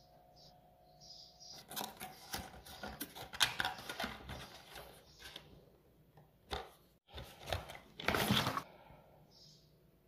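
Cardboard box flaps pulled open and handled, a quick run of scrapes and clicks, then the plastic sachet of descaling liquid crinkling as it is slid out of the box, the loudest part about eight seconds in.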